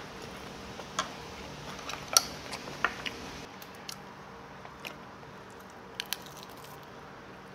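Someone eating: chewing, with a few sharp clicks of utensils against dishes, the loudest about two seconds in.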